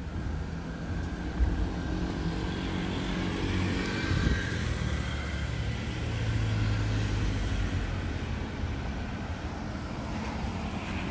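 Street traffic: a motor vehicle running along the road, growing louder to a peak about four seconds in and then fading, with a low engine hum continuing underneath.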